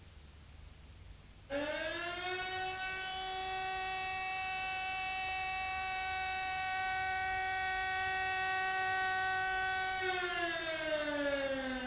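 Siren sound on a punk demo tape recording. It comes in about a second and a half in, rises briefly to one held pitch, and starts sliding down in pitch near the end.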